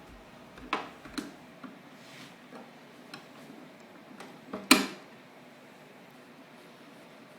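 A few separate clicks and knocks at irregular spacing, the loudest about four and a half seconds in, with quiet between them.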